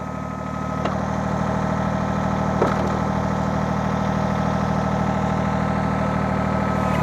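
John Deere 855 compact tractor's three-cylinder diesel running steadily while a backhoe control valve spool is worked, its note rising slightly about a second in as the hydraulics take the load.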